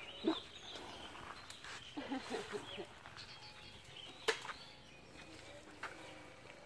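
Quiet outdoor background with faint distant voices and a few small bird chirps. Two sharp clicks stand out, one just after the start and a louder one a little past the middle.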